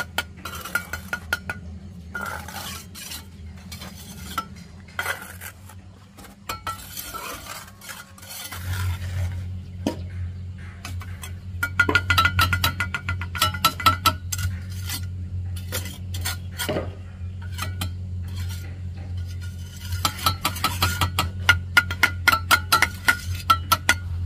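Quick runs of metal clinking and scraping, as of a steel hand tool tapping and scraping on hard building material, over a steady low hum that gets louder about eight seconds in.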